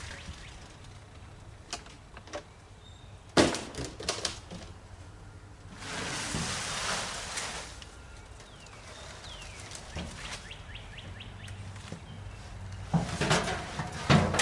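Scattered knocks and clatter with a stretch of rustling in the middle, from someone moving and handling materials by hand; the loudest burst of clatter comes near the end.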